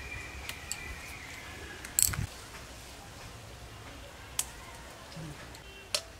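A few sharp clicks and snaps, the loudest about two seconds in, from hands working in the branches of a carambola tree, pulling star fruit off.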